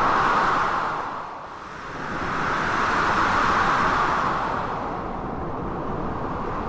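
Blizzard wind gusting in waves of noise: loud at the start, dipping about a second and a half in, then swelling again and slowly easing off.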